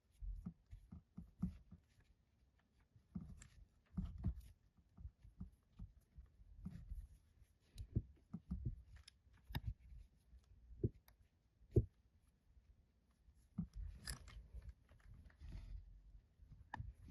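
Kinetic sand and its packaging being unpacked and handled: irregular soft taps, clicks and low thuds with occasional crunchy rustles, a longer rustle about fourteen seconds in.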